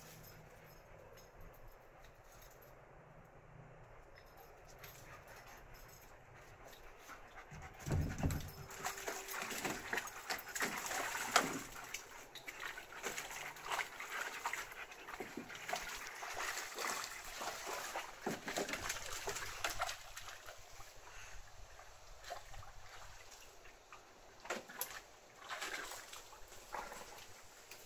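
Dogs splashing and scuffling in muddy water, with some whimpering. Quiet for the first several seconds, then a busy stretch of splashes from about eight seconds in until about twenty seconds, and a few more near the end.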